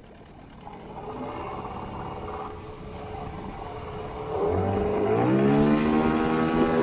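Outboard motor of an inflatable boat running and speeding up: its pitch rises about four seconds in, then holds steady at a higher speed.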